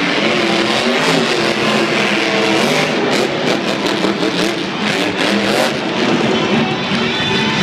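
Several monster truck engines revving, their pitch rising and falling.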